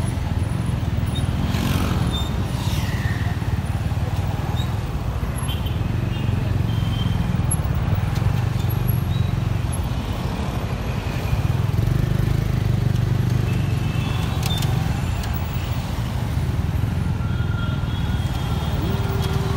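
Street traffic heard from a moving motorcycle: a steady low rumble of the bike's engine and the surrounding cars, scooters and a bus, with a few faint short high tones over it.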